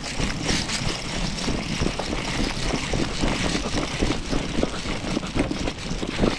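Hurried footsteps, an irregular run of low thuds every few tenths of a second, over steady rustling of clothing and gear as a person moves quickly on foot.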